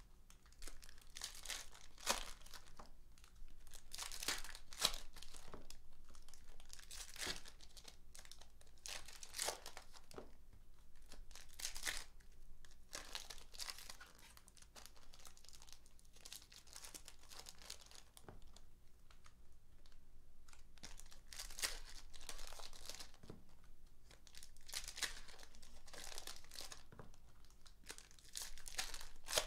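Foil trading-card pack wrappers being torn open and crumpled by hand, in a run of irregular crinkling bursts every second or two.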